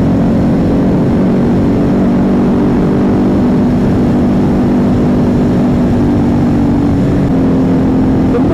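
Motorcycle engine running at a steady, unchanging speed while riding, over a heavy low rumble of wind noise.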